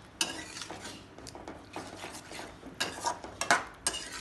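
Metal spoon stirring a thick masala in a stainless steel kadai, scraping and clinking against the pan in irregular strokes. The loudest knock comes about three and a half seconds in.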